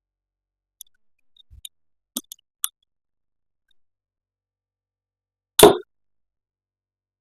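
Plastic toy pieces being handled: a few light clicks and taps, then one louder knock about five and a half seconds in.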